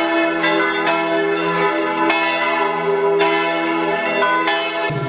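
Church bells ringing: repeated strikes whose tones ring on and overlap into a sustained chord of pitches. The bells stop abruptly near the end.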